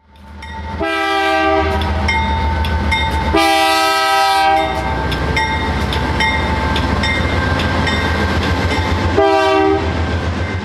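A BNSF diesel-hauled double-stack freight train passing close by: a steady rumble with rhythmic wheel clicks over the rail joints, and the locomotive's air horn sounding a chord three times, the middle blast the longest and the last one short. The sound fades in during the first second.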